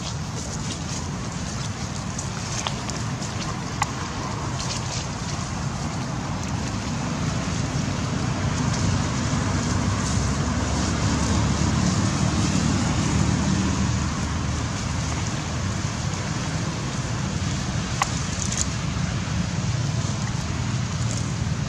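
Low outdoor rumble and hiss, growing louder through the middle and easing off again, with a couple of faint clicks.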